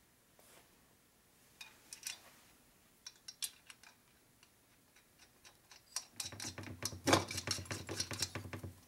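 Light metallic clicks and taps of small engine hardware (washers, nuts) being handled and a motorcycle cylinder being worked onto its studs on the crankcase. The clicks are sparse at first and come thick and fast for the last three seconds, with a low hum joining about six seconds in.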